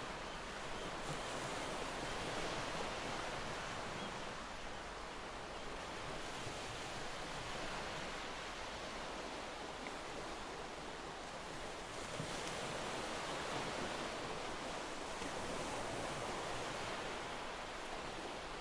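City ambience: a steady wash of distant noise with no distinct events, slowly swelling and easing.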